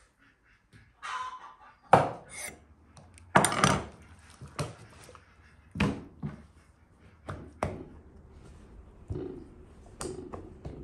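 Kitchen handling sounds: a handful of sharp knocks and clatters of a knife and cutting board on a wooden table, the loudest about two and three and a half seconds in, with quieter rustling between.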